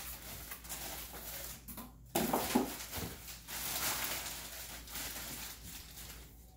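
Clear plastic packaging bag crinkling and rustling as a blender pitcher is handled and pulled out of it, with a louder crinkle about two seconds in.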